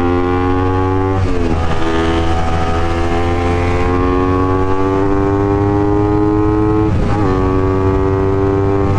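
Honda CBR250RR motorcycle engine pulling under acceleration, its pitch climbing steadily, with two upshifts, about a second in and near the end, each dropping the revs before they climb again.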